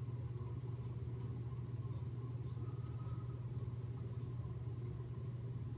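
Merkur 37 slant safety razor with an Astra blade scraping through lathered neck stubble in short strokes, a faint rasp about every half second. A steady low hum runs underneath and is louder than the strokes.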